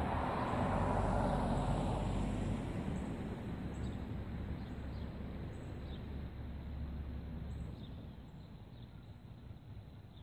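Outdoor ambience: a passing car's tyre rush, loudest about a second in and fading away over the next several seconds, over a low wind rumble on the microphone. Faint short bird chirps recur throughout.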